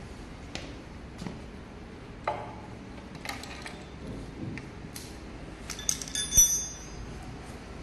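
Metal tools and small parts clinking and tapping: scattered single clicks, then a quick run of clinks that ring briefly about six seconds in, the loudest of them.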